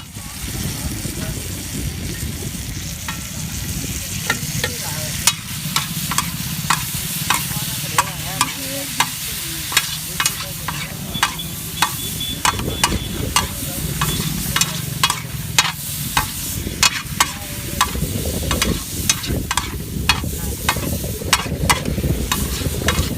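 Sweet corn frying with a steady sizzle while a metal spatula strikes and scrapes the pan in sharp clinks, irregular at roughly one to two a second, as the corn is stirred and tossed.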